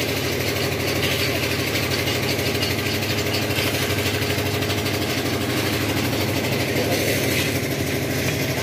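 Concrete mixer's engine running steadily at an even speed while it mixes concrete for a roof slab pour.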